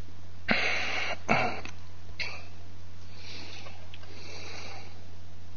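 A man's breathing close to the microphone, with a few soft breaths and a couple of small clicks, over a steady low hum.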